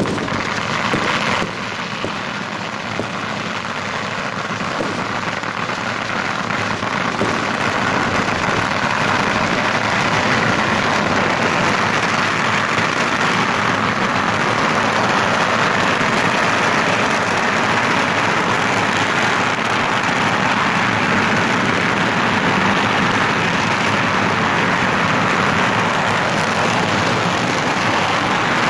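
Long strings of firecrackers going off in a dense, continuous crackle, growing louder about eight seconds in.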